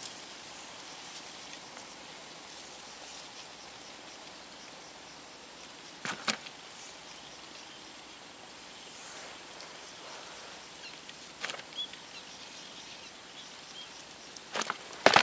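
Quiet outdoor ambience with a steady high-pitched insect drone and two brief ticks about six and eleven seconds in. In the last half-second comes a quick swish and splash as the tegek fishing pole is struck upward and the float is pulled from the water.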